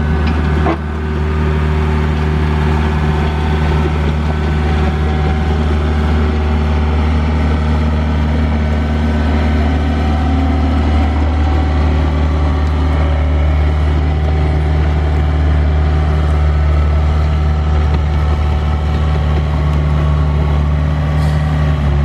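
Doosan mini excavator's diesel engine running steadily, with a brief break about a second in.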